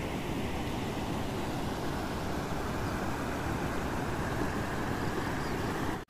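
Steady outdoor rushing noise, an even hiss over a rough low rumble, which stops abruptly near the end.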